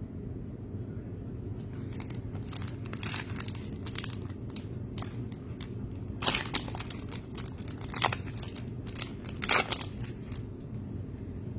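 Crinkling and rustling of trading-card packaging and cards being handled, in irregular strokes with louder crinkles about six, eight and nine and a half seconds in, over a steady low hum.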